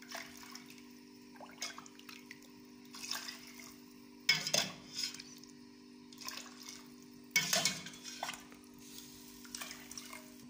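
Metal ladle clinking and scraping against a stainless steel pot as it stirs and scoops up chicken broth, with liquid splashing. There are louder knocks about four and seven seconds in, over a steady low hum.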